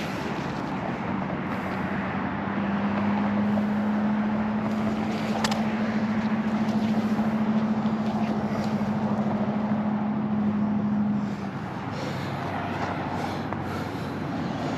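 Road traffic passing over a busy nearby bridge: a steady wash of tyre and engine noise. A vehicle's low hum builds from about a second in and cuts out about three-quarters of the way through.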